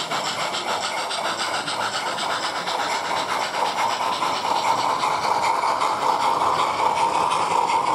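Gauge 1 model steam locomotive running with a train of coaches, giving off rapid, even steam-locomotive chuffs, with a running noise that grows a little louder after the middle.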